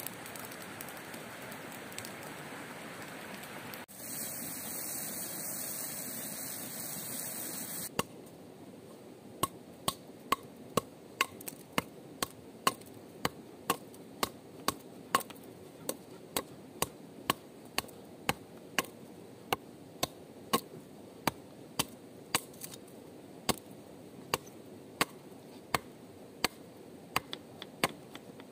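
A steady rushing noise for the first several seconds, then a knife chopping on a cutting board in even strokes, about two a second.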